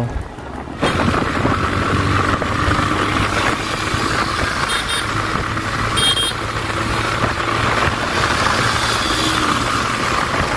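TVS Raider 125's single-cylinder engine running under way, its exhaust note steady with a slight rise near the end, over wind rushing on the handlebar-mounted phone.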